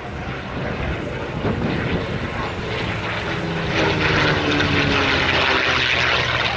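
Single-engine propeller airplane making a low flypast. Its engine grows louder about halfway through, and the engine note falls in pitch as it goes by.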